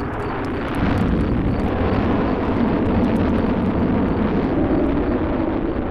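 Rocket lift-off sound effect: the loud, steady rumble of rocket engines, starting suddenly and swelling about a second in.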